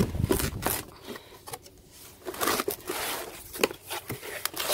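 A cardboard box of magazines is handled: cardboard flaps and glossy paper rustle and scrape, with scattered sharp clicks. A dull bump comes right at the start.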